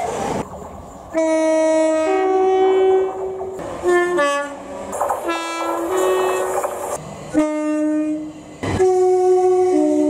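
British passenger train two-tone horns sounding a string of tuneful sequences: low and high notes alternate in held and short blasts, with a quick run of short notes about four seconds in. Each sequence breaks off abruptly where clips are cut together, and there is rumble from a passing train at the very start.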